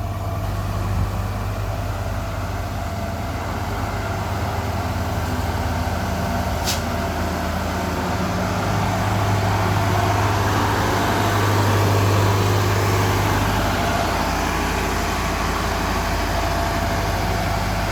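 Diesel engine of a 1994 Atlas 1304 wheeled excavator running steadily. It swells in level about ten seconds in and eases back, with one brief high hiss about seven seconds in.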